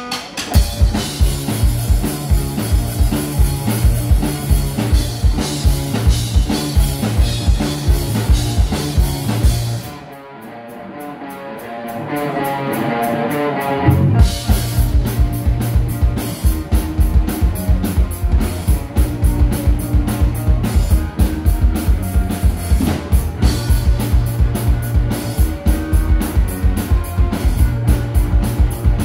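Live rock band playing a fast instrumental section on electric guitars, including a PRS guitar, with bass and a drum kit keeping a steady driving beat. About ten seconds in, the drums and bass drop out for about four seconds, leaving the guitars building up before the full band comes back in.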